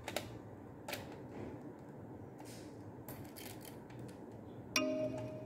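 Plastic Lego Technic parts of a home-built pistol clicking as its mechanism is worked by hand: a few sharp clicks, a double one at the start, one about a second in and a small cluster past the middle. Music comes in near the end.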